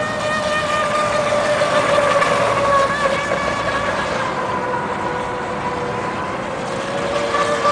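Motor of a radio-controlled model speedboat running at speed as a steady high whine. Its pitch sags a little midway and rises again near the end.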